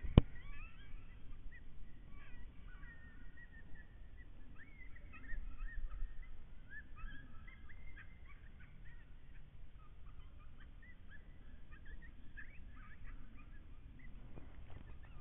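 A distant chorus of many short, high, sliding animal calls, going on throughout over a low rumble of wind. There is one sharp knock right at the start.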